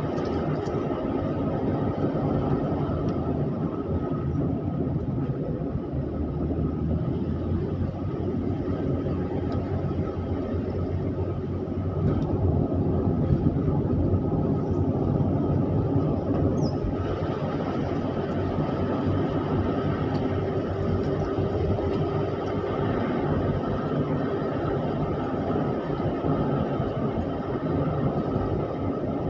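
Steady engine and tyre noise of a car on the move, heard from inside the cabin.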